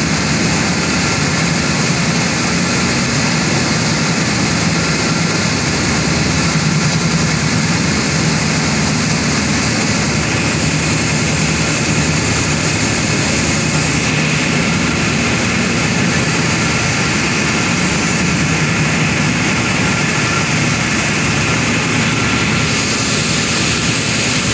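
Continuous loud drone of air compressors and their electric motors running in a compressor house, a steady low hum under a wide even roar that holds without a break.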